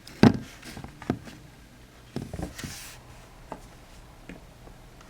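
Light knocks and taps of small hard-plastic animal figurines being handled and set down. The sharpest knock comes about a quarter second in, followed by a few scattered smaller taps.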